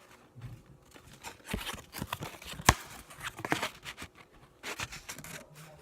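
Baseball trading cards and their packaging being handled, a run of short rustles and clicks with one sharp click about two and a half seconds in.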